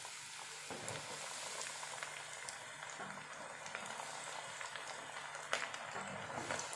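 Breadcrumb-coated chicken drumsticks deep-frying in foaming hot oil in a wok: a steady sizzle full of small crackles and pops, with one sharper pop about five and a half seconds in.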